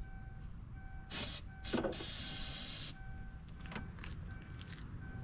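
Aerosol can of ether starting fluid spraying into an engine's air intake: a short spurt about a second in, then a longer spray of just over a second.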